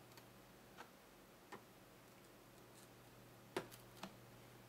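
A few faint, sharp plastic clicks as a flat-blade screwdriver pries at the seam of an ASUS EP121 tablet's plastic back cover to release its retaining tabs, the sharpest click about three and a half seconds in.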